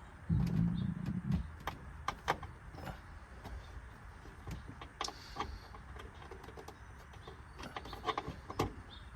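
A low rumble of handling noise for about a second near the start, then scattered light metallic clicks and knocks of bolts and hand tools being handled, with a small cluster near the end.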